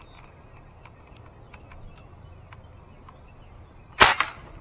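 A single shot from a Crosman 760 Pumpmaster pump-up air rifle: a sharp pop about four seconds in, followed a moment later by a fainter knock, after a few seconds of quiet outdoor background.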